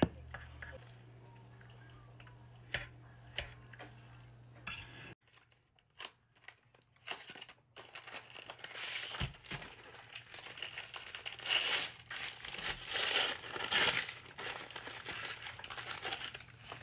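Cardboard box of puff pastry torn open and the paper wrapping round the pastry sheets unfolded, crinkling and tearing, loudest in the second half. Before that, a few sharp clicks of a knife and fork on the baking dish as a roast is carved.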